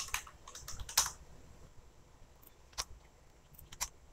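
Computer keyboard typing: a quick run of keystrokes in the first second, then a few single clicks spaced out over the rest.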